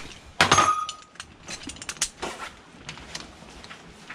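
Metal sockets and a ratchet wrench clinking against each other and the socket set case. There is a loud clatter about half a second in that rings briefly, then a run of lighter clicks and taps.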